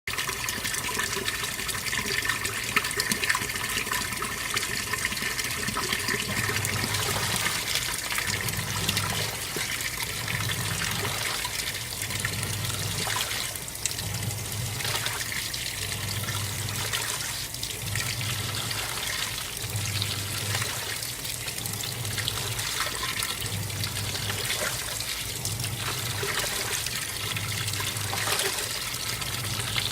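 AQUA MCW-C70 coin-operated 7 kg washing machine on its rinse: fresh water rushes into the tub, and from about six seconds in the wash motor starts agitating in a low pulse about once a second, churning the water while the tub keeps filling.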